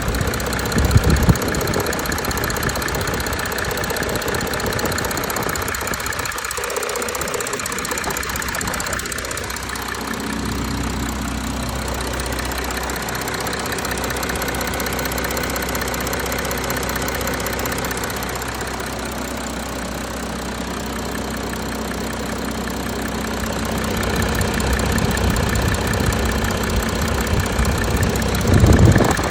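Audi A4 3.0-litre 200 kW V6 diesel engine running steadily at idle with a clattering note, swelling briefly louder about a second in and again near the end.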